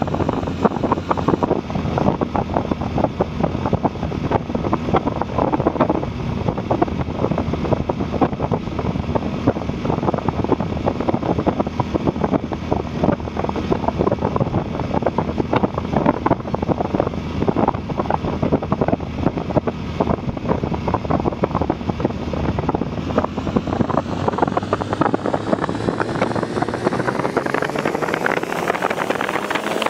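Motorcycle engine running at road speed with heavy wind buffeting on the microphone. From about three-quarters of the way through, the engine note climbs steadily as the bike accelerates.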